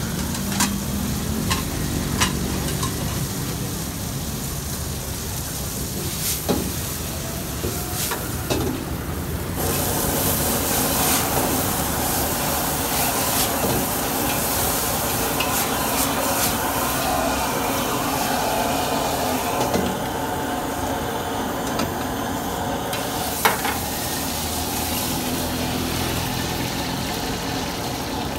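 Leafy greens stir-fried in a steel wok over a gas burner: a steady burner rush with sizzling, and a few sharp clacks of the metal ladle against the wok. About ten seconds in the sizzle turns to a louder hiss as heavy steam rises from the pan.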